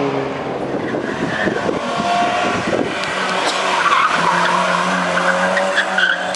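Small hatchback race car's engine running hard as it climbs and corners, with the tyres squealing through the bend about halfway in.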